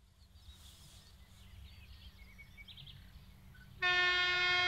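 Faint outdoor background of low wind noise and small chirps, then near the end an approaching passenger train sounds its horn: one steady, loud single-pitched blast that runs on past the end.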